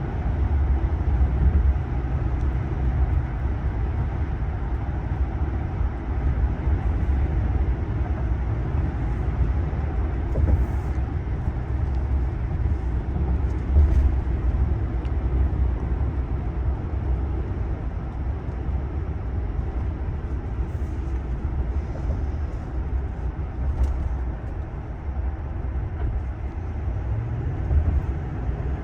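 Cabin noise of a 2023 Ram 1500 Limited pickup with a 5.7-litre HEMI V8 driving along: a steady low rumble of road, tyre and engine noise with wind noise over it.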